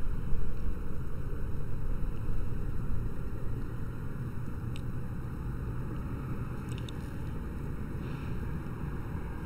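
Steady low rumble of outdoor background noise, a little louder in the first few seconds and then settling, with a few faint short high ticks in the middle.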